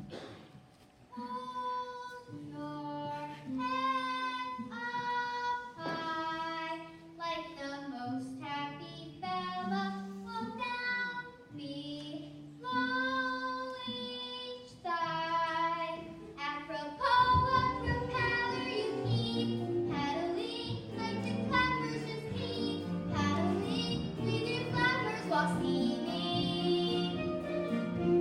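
Children singing a show tune with musical accompaniment. At first a single sung melody line stands out clearly; about two-thirds of the way through the sound grows fuller and louder as more voices and accompaniment come in.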